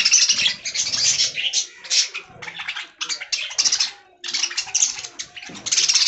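A flock of budgerigars chattering and warbling in rapid, overlapping bursts, with brief lulls between them.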